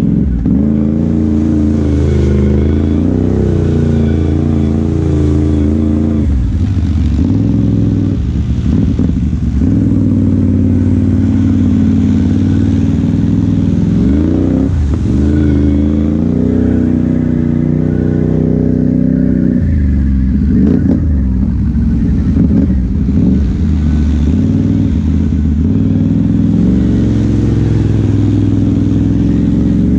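Off-road vehicle engine running steadily under way, its pitch rising and falling several times as the throttle opens and closes.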